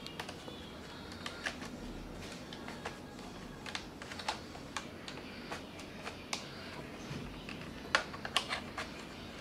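Irregular small clicks and taps of plastic and metal parts as the front end of an A.P.S. UAR501B airsoft rifle is handled and a muzzle cap is twisted off, with a quick cluster of sharper clicks about eight seconds in.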